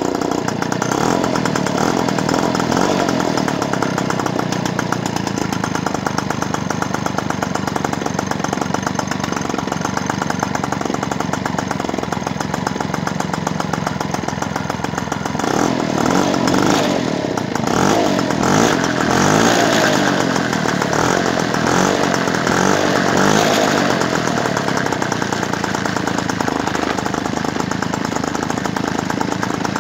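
Peugeot 103 moped's 50 cc two-stroke single-cylinder engine running just after its first start on a brand-new top end. About halfway through it is revved up and down several times, then settles back to a steady run; a slightly leaking exhaust joint makes it a lot of noise.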